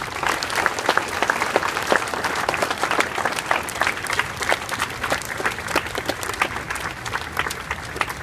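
A large crowd applauding, many hands clapping densely together.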